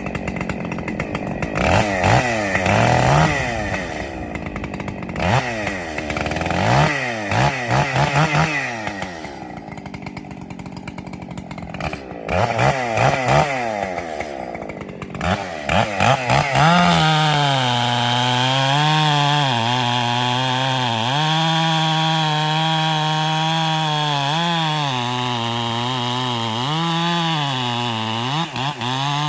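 Echo professional two-stroke chainsaw revved up and down several times, then held at full throttle for the rest of the time, its engine note dipping repeatedly as the chain loads up in almond wood.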